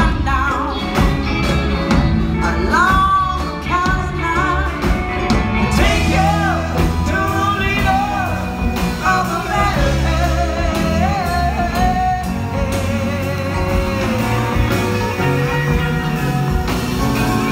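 Live band playing a country-rock song, with drums, electric guitars and keyboards, and a singing voice over them.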